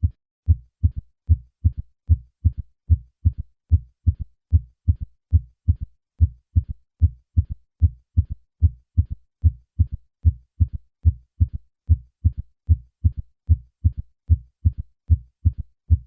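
Heart sounds with a third heart sound (S3): the first and second heart sounds are each followed by a low-pitched early-diastolic third sound, making the triple-beat ventricular gallop. It comes as a steady run of short low thuds, about three a second. In adults over 40 this gallop usually indicates heart failure.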